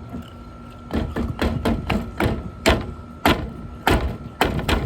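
A block of ice with toys frozen inside being banged and knocked to break it loose: a dozen or so irregular hard knocks and thuds, starting about a second in.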